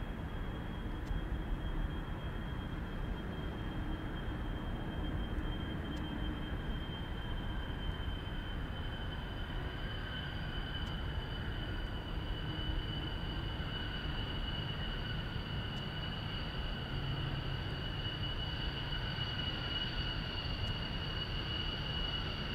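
F-15C Eagle jet engines running steadily at a distance, a high turbine whine with two tones drifting slowly down in pitch over a rushing roar.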